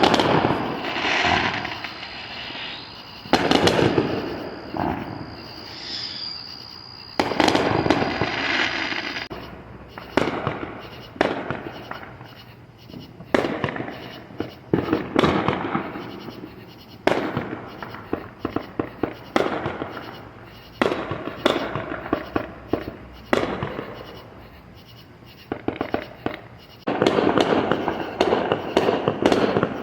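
Fireworks going off: a long series of loud bangs, one every second or two, each trailing off, then a rapid volley of crackling reports near the end.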